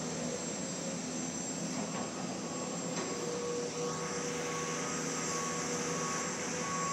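Excavators working on a construction site: a steady drone of diesel engines with a whine from the hydraulics that comes and goes.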